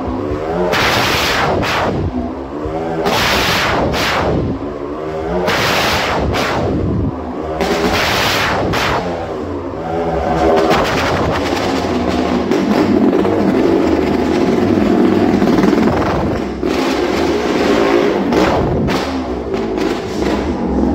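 A motorcycle engine runs hard as the bike circles the wall of a wooden wall-of-death drum. The engine note swells and fades with each lap, about every two seconds, and settles into a steadier drone after about twelve seconds.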